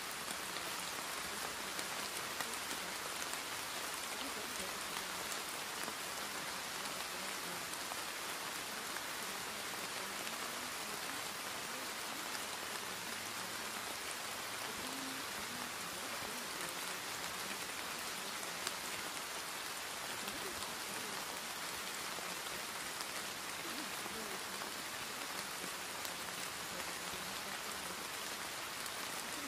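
Steady recorded rain, an even unbroken hiss, used as the masking layer of a subliminal audio track, with the affirmations mixed in underneath too faintly to make out.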